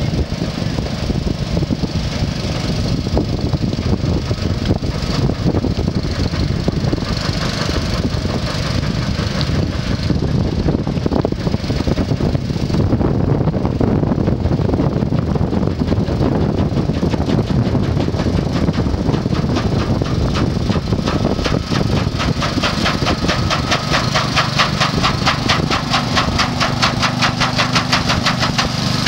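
Homemade paddle-wheel pontoon boat under way: a small engine running steadily while the side paddle wheels churn the water. In the last third the sound grows into a rapid, even beat as the boat draws close.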